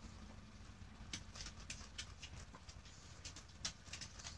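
Mini Rex rabbit chewing fresh Italian parsley: faint, quick, irregular crunching clicks of the stems and leaves, starting about a second in.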